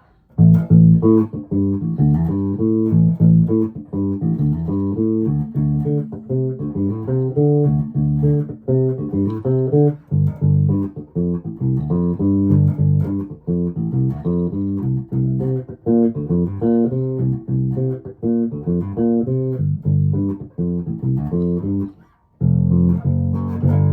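1996 Alembic Epic four-string electric bass played through its active preamp with the treble boosted all the way: a steady run of plucked notes with a very brittle tone. The playing stops briefly near the end, then one note is held.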